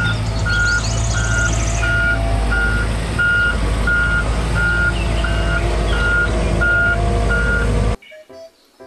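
Volvo wheeled excavator's diesel engine running steadily, its backup alarm beeping about twice a second, with birds chirping; the sound cuts off suddenly near the end.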